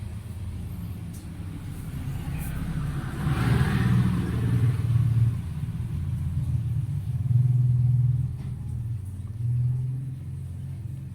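Car engine running, with the revs rising and falling in swells about four, eight and nine and a half seconds in.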